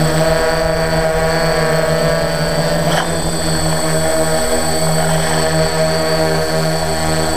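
Multirotor drone's electric motors and propellers humming steadily, heard close up through the drone's own onboard camera, with a brief click about three seconds in.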